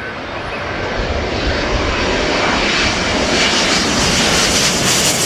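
Twin-engine widebody jet airliner passing low overhead on landing approach, gear down; its engine noise grows steadily louder as it nears.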